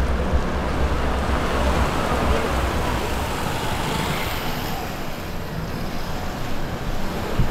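Street traffic: a motor vehicle driving past, a steady rumble of engine and tyre noise that swells in the middle and eases off near the end.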